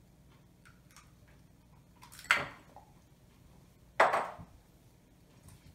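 Two sharp knocks with a short clattering tail, one about two seconds in and a louder one at four seconds: kitchen items being put down or handled on a counter.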